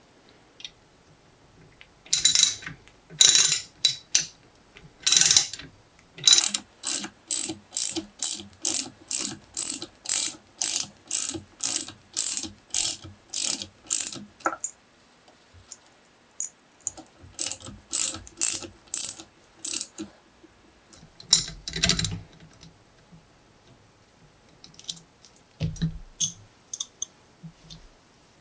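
Socket ratchet wrench clicking in quick back-and-forth strokes, about two a second, as a nut is run down onto a bolt. The strokes come in two runs with a pause between them.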